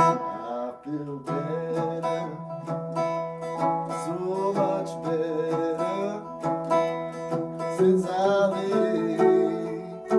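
Three-string cigar box guitar being played: plucked notes over a steady low drone, with melody notes gliding up and down in pitch.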